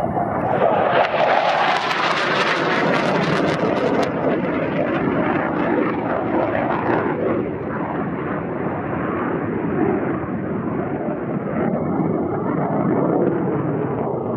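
MiG-21UM two-seat jet fighter's turbojet giving loud jet noise as the aircraft passes low and pulls up into a steep climb. It is harsh and crackling for the first few seconds, then settles into a steady lower rumble as the jet climbs away.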